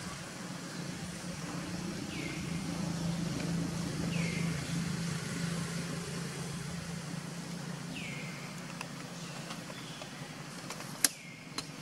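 Outdoor ambience: a steady low drone like a distant motor, with four short, falling chirps spread through it and one sharp click near the end.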